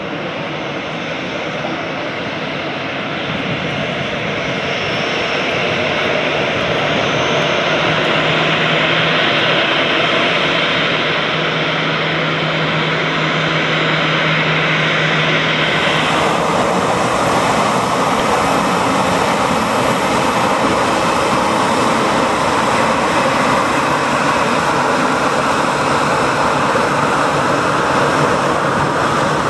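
Boeing 737 BBJ's CFM56-7 turbofan engines running at taxi power: a steady jet whine and rush that grows louder over the first several seconds. The sound changes abruptly about halfway through.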